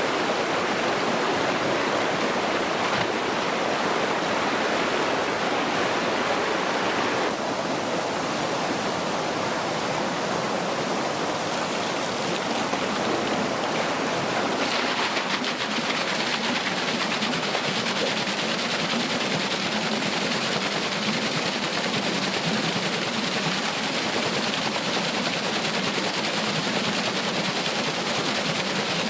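Water rushing and splashing steadily as it pours onto a wooden water wheel. The sound shifts in character suddenly about 7 and 15 seconds in.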